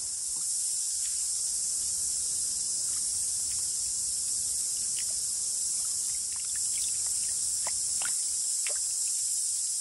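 Steady high-pitched insect chorus from the bush, with faint short trickles and splashes of shallow running water around bare feet standing in a stream over the track.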